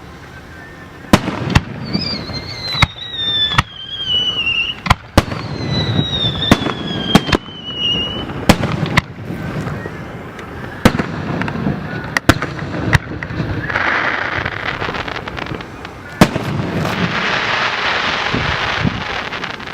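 Fireworks display: a rapid, irregular series of loud bangs, with two whistling fireworks falling in pitch in the first half and a crackling spray of effects in the last few seconds.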